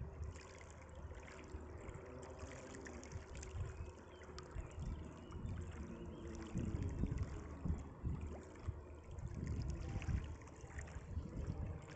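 Small waves lapping and trickling at the lake's edge, with wind buffeting the microphone in irregular low gusts.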